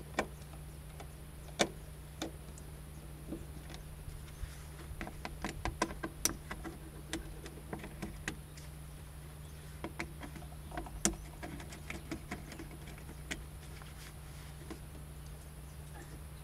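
Irregular clicks and knocks of plastic engine-bay trim and clips being worked loose by hand on a BMW E36, busiest about halfway through, over a steady low hum.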